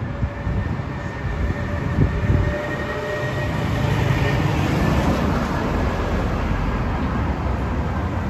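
A rail vehicle running: a steady low rumble with thin high whining tones, getting louder about halfway through.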